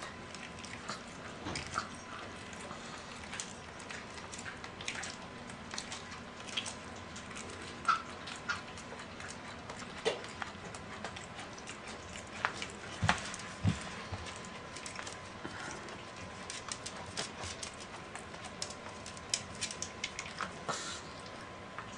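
A dog chewing and biting pieces of beef: irregular short clicks and chomps of its jaws, a few of them louder past the middle.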